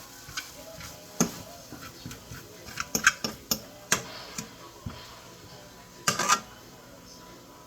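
Dishes and utensils clinking and knocking as food is served onto plates: scattered light clicks, busiest around three to four seconds in, with a louder clatter about six seconds in.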